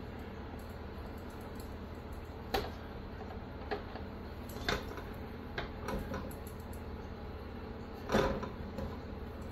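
Scattered soft taps and knocks of hands and biscuit dough against a metal mixing bowl and a baking sheet as drop biscuits are portioned by hand, over a steady low hum; the loudest knock comes near the end.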